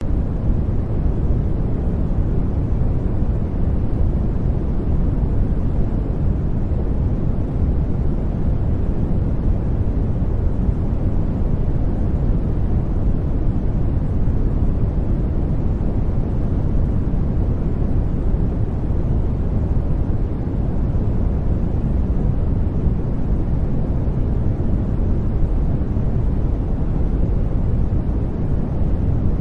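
Steady, deep white-noise-style hiss, unchanging throughout: the background bed of a subliminal audio track.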